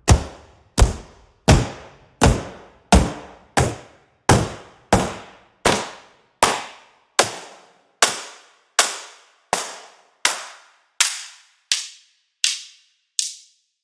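Single percussion hits from the Box Factory sampled box-percussion library, one about every 0.7 seconds. Each hit dies away quickly. Over the run they lose their low end, going from full, thumpy hits to thin, high clicks near the end.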